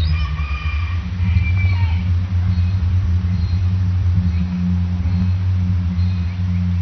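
A loud, low, steady drone that wavers slightly: the unexplained sound that seems to come from the sky, with no visible source.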